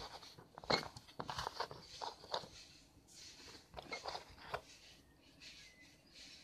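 Handling noise: scattered sharp clicks and rustles as a small plastic tube of grease is picked up off a tabletop among screwdrivers, with a sleeve brushing close to the microphone.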